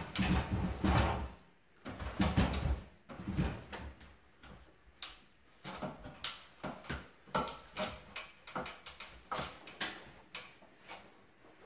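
Scattered knocks, clicks and rustles of handling work: a person climbing a stepladder and handling self-adhesive wallpaper against a ceiling. The sounds are louder and busier in the first few seconds and sparser after.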